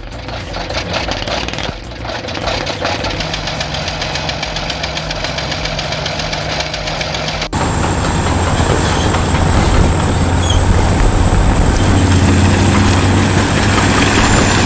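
Old Caterpillar D8H bulldozer engine running with a rapid, even knock of firing strokes. About halfway through it cuts abruptly to a louder, steadier heavy bulldozer engine.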